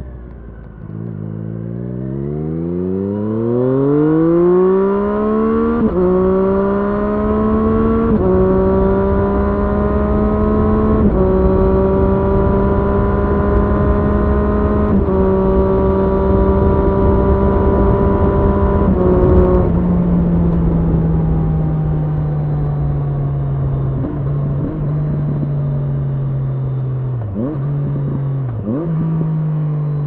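Triumph Street Triple S's inline three-cylinder engine through an SC Project SC1-R slip-on exhaust with the dB-killer fitted, pulling hard with a rising note for the first few seconds, then shifting up about four times, each shift a small step down in pitch. About two-thirds of the way through the throttle closes and the note sinks slowly as the bike slows on the engine, with a few brief dips near the end.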